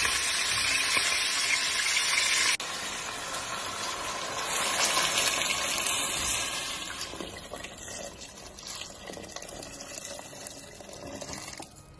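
Water poured into a pot of raw chicken and onion pieces, a steady gush of hot water filling the pot. It breaks off abruptly about two and a half seconds in, picks up again, and tapers off over the last few seconds.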